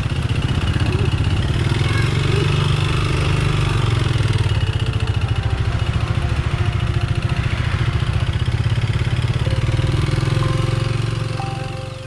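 A small engine running steadily at an even speed, with a rapid low pulsing. It fades in at the start and fades out near the end.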